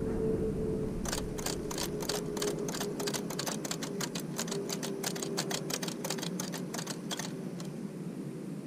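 3D-printed plastic flip display with its flaps flipping over, a rapid run of clicks at roughly five or six a second over a steady hum, starting about a second in and stopping a little over a second before the end.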